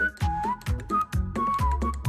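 Background music with a steady beat and a whistled lead melody.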